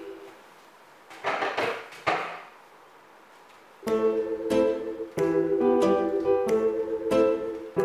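Plucked-string background music fades out, leaving a quiet gap broken by two short noisy sounds about one and two seconds in. The plucked-string music comes back in about four seconds in with separate picked notes.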